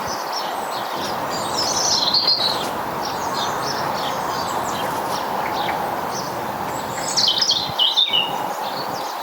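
Small garden birds chirping and twittering, with two louder, busier twittering phrases, one about two seconds in and one near the end. Steady background noise runs underneath.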